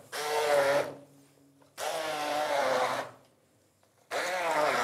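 Hand-held electric stick blender pureeing chopped peppers, onions and chilies in oil into peri-peri sauce, run in three short bursts with pauses between. The motor's pitch wavers within each burst.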